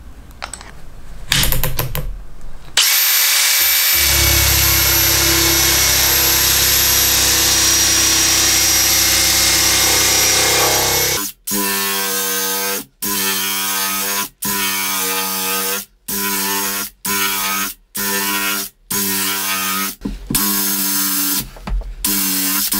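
A few metal clicks from a wrench tightening the nut on a sanding mandrel. Then a Makita XPH12 18V cordless hammer driver-drill spins a sandpaper sleeve against the edge of a pine board: it runs steadily for several seconds, then keeps running through a string of short stretches broken by abrupt gaps.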